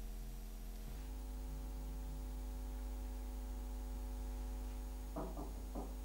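A steady electrical hum with several overtones, shifting slightly about a second in, with a few short soft sounds near the end.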